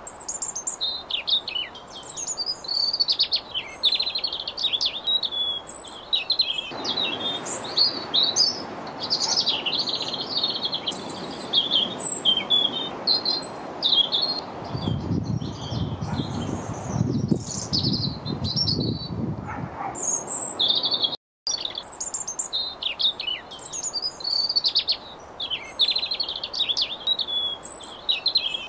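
European robins singing: a near-continuous run of short, high, varied phrases, with a low rumble for a few seconds in the middle.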